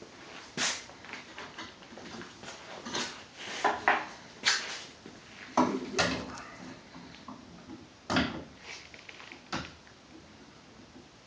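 Metal hand tools and gun parts being handled on a workbench: a series of irregular knocks and clanks, several with a short ring, as the AR-15 barrel nut is brought round to its hole with a torque wrench.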